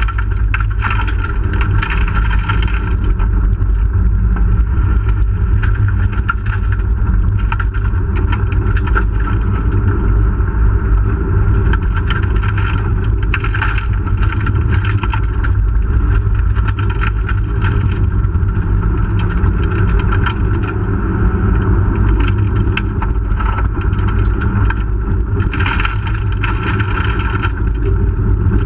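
Inside the cabin of a 1997 Hyundai Excel rally car: its SOHC four-cylinder engine running hard at stage pace over a dirt road, under a steady low road rumble. Scattered knocks and rattles come from the car bouncing over the surface, busiest about a second in, around the middle and near the end.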